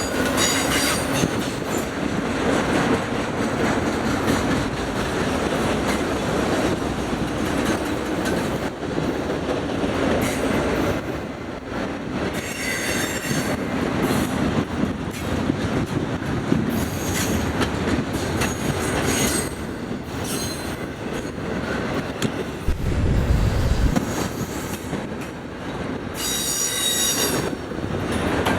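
Freight train cars rolling past, wheels clattering over the rail joints, with brief high-pitched wheel squeal about twelve seconds in and again near the end. A short low rumble comes about two-thirds of the way through.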